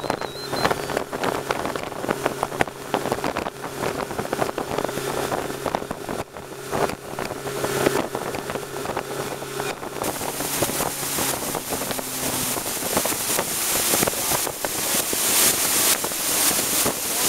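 Motorboat engine running steadily, with wind on the microphone and water rushing past the hull. About ten seconds in, the engine's steady hum drops away and the rushing hiss of wind and water grows louder.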